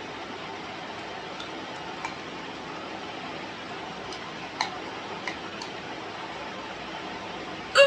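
A woman's hiccup, one short, sharp 'hic' near the end, preceded by a few faint clicks over a steady background hiss.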